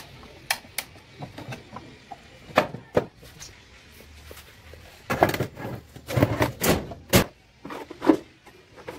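Wooden knocks and clunks from a homemade wooden tool box being handled as its cantilever trays are swung open. A few light clicks come early, then a busier run of louder knocks follows in the second half.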